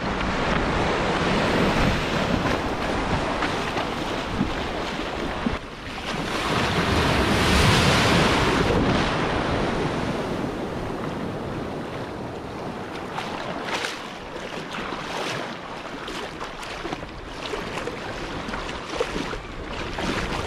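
Shallow sea water washing and splashing close to the microphone, with wind buffeting it. The wash swells loudest about a third of the way in, then eases, with a few brief splashes near the end.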